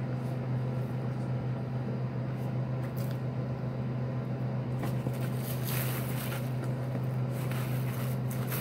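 A steady low hum throughout. From about five seconds in, clear plastic sandwich wrap crinkles and crackles as it is crumpled by hand.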